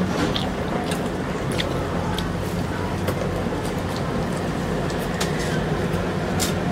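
Steady low mechanical hum and rumble, with a few faint clicks.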